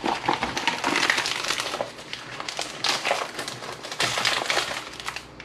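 Fresh banana and ti leaves rustling and crinkling as hands fold and press them tightly into a bundle: a dense run of small crackles that dies down near the end.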